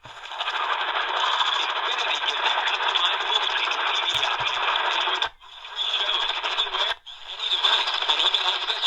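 Static and hiss from a C.Crane Skywave portable radio's speaker, tuned to medium wave (AM) between stations. The static cuts out briefly twice, about five and seven seconds in, as the radio is stepped to the next frequency.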